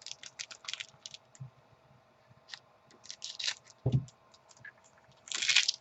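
Football trading cards and their packaging being handled at a table: quick flicks, clicks and scrapes of card stock, a soft thump about four seconds in, and a longer scraping rustle near the end.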